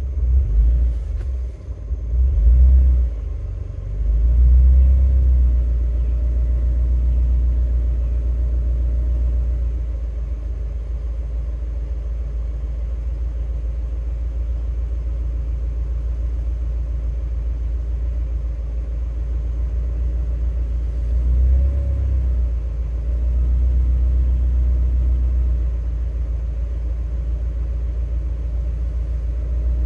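Honda K20 four-cylinder engine, swapped into a Mazda Miata, idling just after starting, heard from inside the car. The idle is uneven for the first few seconds, then settles to a steady low hum at about 850 rpm, with one brief swell about two-thirds of the way through.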